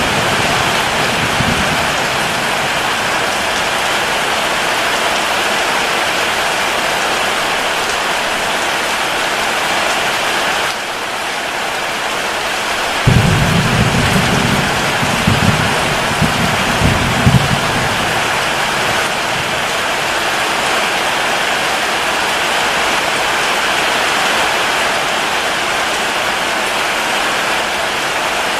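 Steady heavy rain pouring down. A low rumble of thunder dies away at the start, and another breaks in suddenly about halfway through and rolls on for several seconds.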